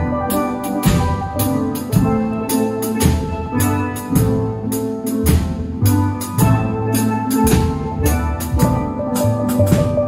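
A steel band playing: steel pans in several ranges, from high tenor pans down to barrel-sized bass pans, over a drum kit keeping a steady beat, with a strong accent about once a second.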